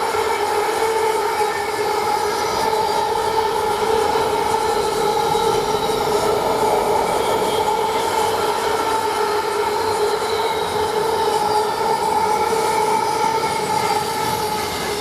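Freightliner intermodal container train behind a Class 66 diesel locomotive rolling steadily past, its wagon wheels on the rails giving a continuous rumble with a steady ringing tone over it.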